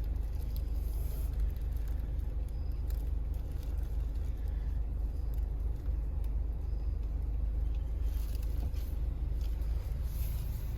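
Car running: a low, steady rumble.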